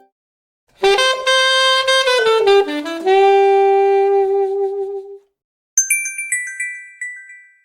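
Huawei Emotion UI 2.3 phone tones played back to back. First a short saxophone-like melodic phrase of falling notes ending on a long held note, then after a short gap a high, bell-like chime of quick repeated notes.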